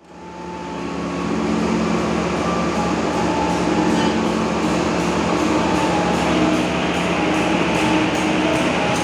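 Diesel-electric locomotive of a local passenger train running as it pulls into the station platform: a steady engine drone with low held tones, fading in over the first second or so.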